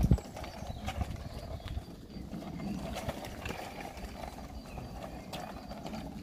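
Footsteps on a paved path, an irregular series of light knocks over a low outdoor rumble, with one loud thump right at the start.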